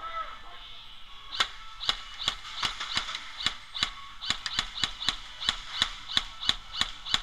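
Airsoft fire: a rapid, irregular string of sharp cracks, about four a second, each with a short high ring. It starts about a second and a half in.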